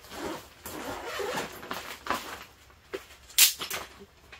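Fabric rustling and handling of a military backpack as things are dug out of it, with a short, sharp rasp about three and a half seconds in, the loudest moment.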